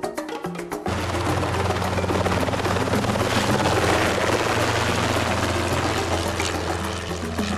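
Background music for about the first second, then a small helicopter lifting off close by and climbing away. Its engine and rotor give steady, loud noise over a low hum.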